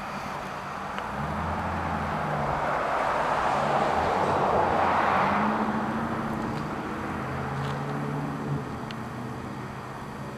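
A car passes by on a nearby street. Its tyre and engine noise swells to a peak about halfway through, then fades away, over a low engine hum.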